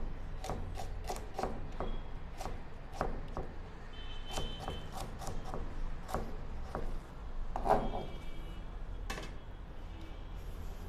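Kitchen knife chopping on a cutting board: irregular knocks a few times a second, some with a brief metallic ring, and one louder knock about three-quarters of the way through.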